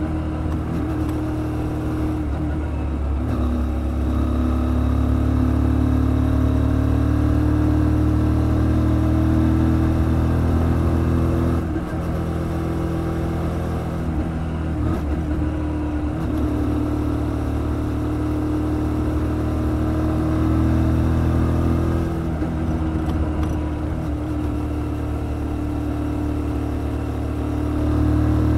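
Kymco Quannon 125's single-cylinder four-stroke engine pulling at road speed, its pitch and loudness easing off about 12 seconds in and again around 22 seconds, then rising under throttle near the end.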